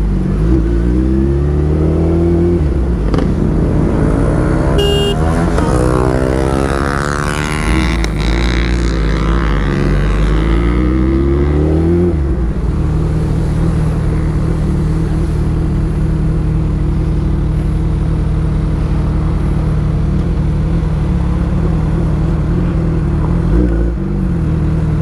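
Motorcycle engine under way. For the first twelve seconds its pitch rises and falls as it accelerates and shifts, then it settles to a steady cruising note. A short high beep sounds about five seconds in.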